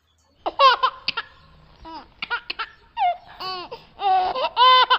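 A young child laughing, high-pitched, in a string of short giggles and squeals.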